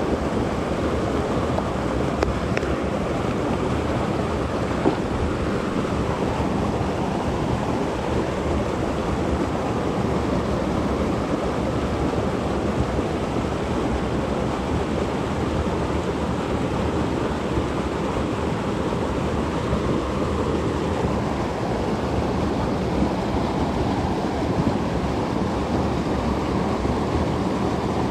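Shallow creek water rushing steadily over a rocky riffle, a constant, even wash of moving water.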